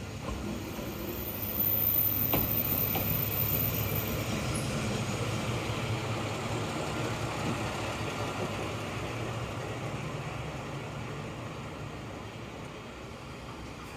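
Kanto Railway KiHa 2000-series diesel railcar heard from the cab: a steady rumble of engine and wheels on rail that grows louder over the first two seconds, then slowly fades as the train slows toward the terminal. A single sharp click comes about two seconds in.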